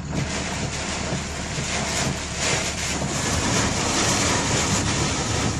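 Storm wind with heavy rain, a steady rushing noise with a low rumble and passing gusts.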